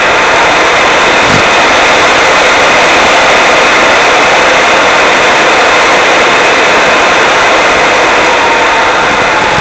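Loud, steady rushing hiss on the RC glider's onboard FPV audio, with no motor whine in it. It is the kind of noise that airflow over the fuselage or the analogue video link's static makes.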